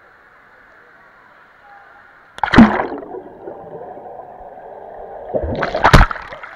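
Camera plunged into pool water with a sudden loud splash about two and a half seconds in, followed by muffled underwater churning and bubbling. A second loud burst of splashing and bubbles comes near the end as it is swept through the water.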